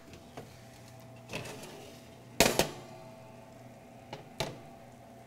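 Knocks and clanks of a kitchen oven being opened and its contents handled to check the bake, the loudest a sharp double clank about two and a half seconds in, over a faint steady hum.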